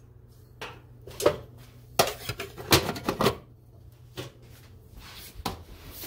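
Spoon scraping and tapping against a bowl as cooked pumpkin is scooped into an electric coffee grinder: a run of short knocks and scrapes, thickest about halfway through.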